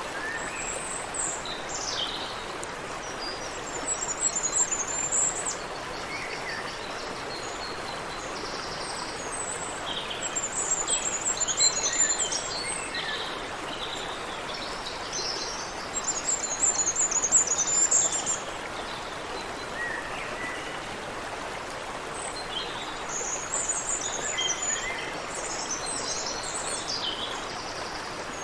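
Steady rush of water running in a creek, with several bouts of high, rapid twittering birdsong over it.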